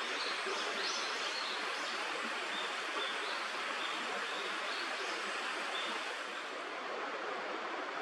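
Steady rushing of a flowing stream, with a few faint high chirps in the first couple of seconds.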